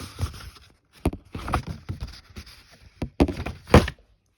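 Rustling noise broken by a few sharp knocks, the loudest near the end.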